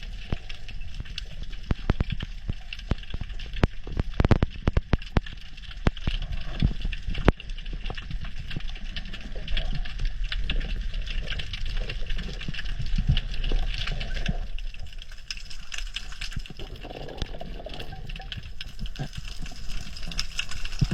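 Underwater sound picked up by a diving camera: a steady rush of water with dense, irregular clicking and crackling.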